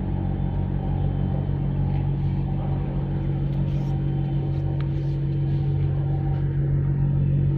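Steady low mechanical drone of an idling engine, with several fixed hum tones that hold unchanged throughout.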